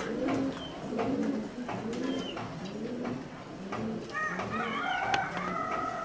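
Pigeons cooing over and over in low, rolling coos. Higher-pitched whistling bird calls join in from about four seconds in.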